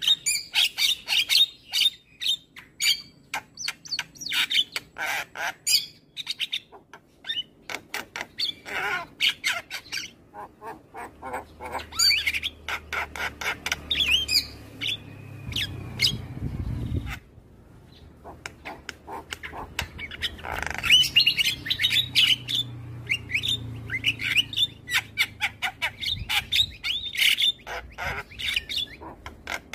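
Javan myna (jalak kebo) singing non-stop: rapid runs of short, harsh squawks mixed with chirps and whistles, with a brief pause about halfway through.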